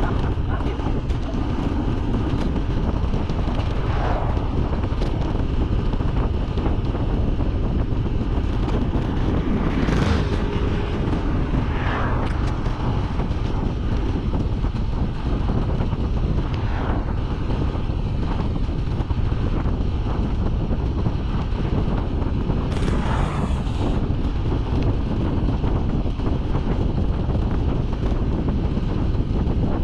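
Wind rushing over the microphone of a camera carried on a road bike riding at speed. A few vehicles swell past now and then.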